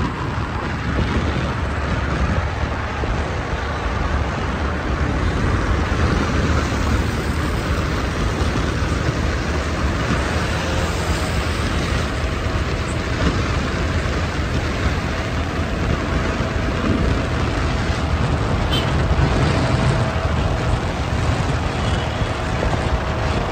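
Wind rushing over the microphone and steady road noise from a vehicle moving at speed through traffic, with a faint steady whine joining about halfway through.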